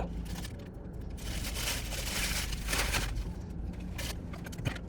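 Crinkling and rustling of a paper food wrapper, loudest about two to three seconds in, over a low steady rumble.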